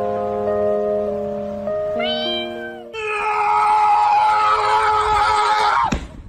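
Background music of held chords with cat-like meows over it. About three seconds in the sound turns denser and brighter, then drops away in a falling glide near the end.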